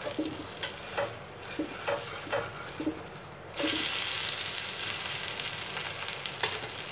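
Steel spatula scraping and clicking under a wheat dosa on an oiled dosa griddle, then a sudden loud sizzle about three and a half seconds in as the dosa is flipped onto the hot oil. It keeps frying with a steady hiss.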